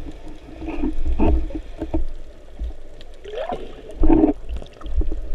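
Muffled water noise picked up underwater, with scattered sharp clicks and knocks as a speared red mullet is worked along a speargun shaft by hand.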